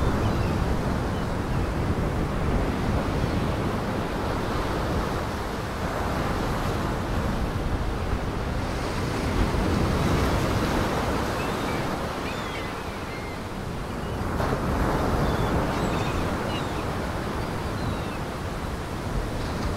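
Heavy surf: waves breaking and washing in a steady rushing noise with wind, easing off about two-thirds of the way through and surging again shortly after.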